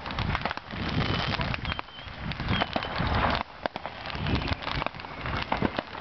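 Fireworks crackling and popping in a dense stream of sharp snaps over a hiss, with a few short high whistles and low rumbles underneath.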